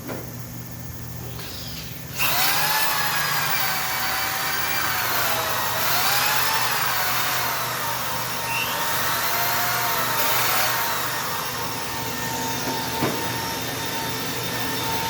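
A hand-held power tool starts suddenly about two seconds in and runs on a wheel rim, its whine dipping and rising in pitch as it works. A low steady machine hum lies underneath.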